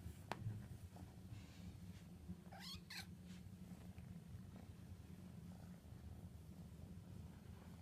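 Very young kitten giving a short, high squeak in place of a meow, rising in pitch, about two and a half seconds in. A faint click just after the start.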